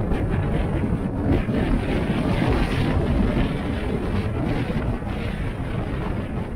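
Road noise from a car being driven: a steady rumble of tyres and wind with a hiss above it, easing a little near the end.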